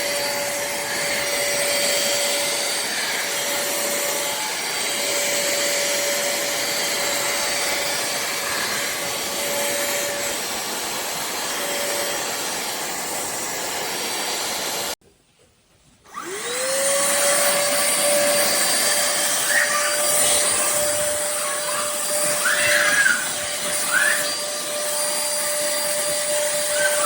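Cordless handheld vacuum cleaner running with a steady motor whine and airflow hiss. About halfway through it cuts off for about a second, then starts again, its whine rising quickly up to speed before running steadily.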